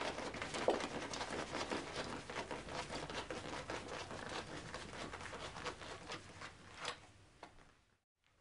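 A banner rustling and crinkling as it is rolled up tightly around a barrier cross rail by hand, with many small scrapes and clicks. A sharper click comes near the end.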